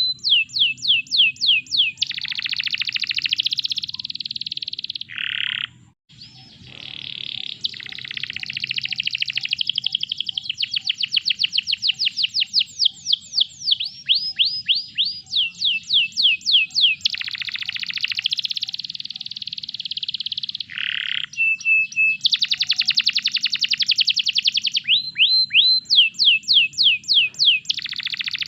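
Domestic canary singing: fast runs of repeated, sweeping notes alternating with rolling trills, broken by a short pause about six seconds in.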